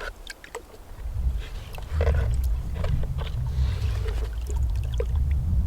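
Low rumbling noise that swells about a second in and stays strong from about two seconds on, with scattered faint clicks.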